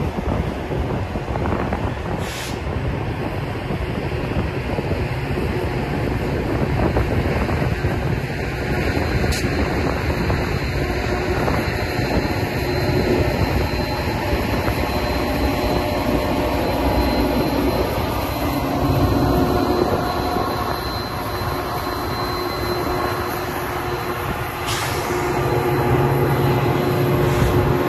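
Metra bilevel commuter cars rolling past with steady wheel-on-rail noise. In the last few seconds the EMD F40PH diesel locomotive at the end of the train passes, and the sound gets louder with a deeper engine note.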